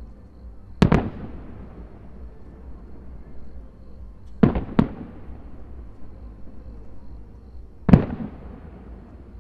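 Aerial firework shells bursting: a quick double bang about a second in, another double bang a little past halfway, and a single louder bang near the end, each followed by a fading rumble.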